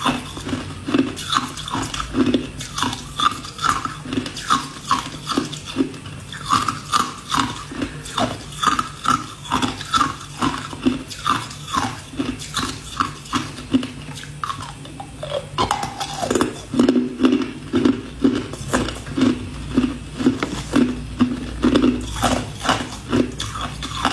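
Ice cubes being bitten and crunched close to the microphone, in a steady chewing rhythm of about two crunches a second.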